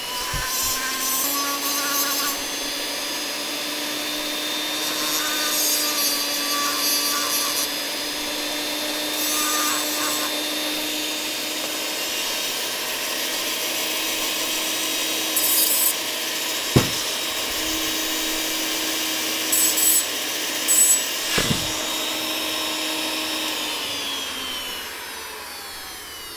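Foredom flexible-shaft rotary grinder running with a steady whine, grinding oil-relief notches into the cone of a steel Muncie third-speed gear, with short harsher spells of scraping as the bit bites. There are two sharp knocks in the second half, and the motor winds down near the end.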